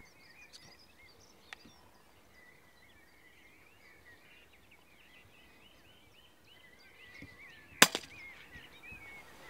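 Songbirds singing, then about eight seconds in a single sharp crack of a Daystate Mk4 pre-charged air rifle firing at a rabbit. A faint click sounds about a second and a half in.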